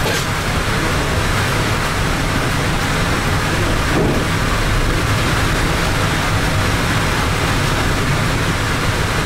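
Steady running noise of a SunRail commuter train heard from inside its cab car: an even rumble and hiss of wheels on rail and the car body while the train moves along the track.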